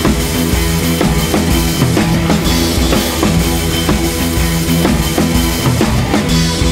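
Background music with a drum kit keeping a steady beat under sustained instrument tones.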